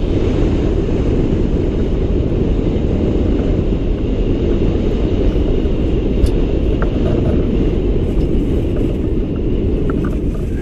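Steady, loud wind noise buffeting the microphone of a camera on a hang glider in flight, heaviest in the deep end.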